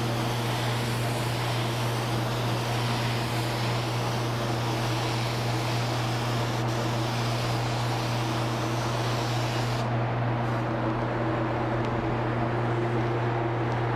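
Paint spray gun spraying a coat of paint: a steady hiss of air over a constant low hum from its air supply. The hiss drops off about ten seconds in while the hum carries on.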